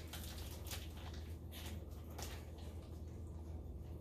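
Faint, soft handling noises as hands work with food and packaging, a few light squishy taps and rustles, over a steady low hum.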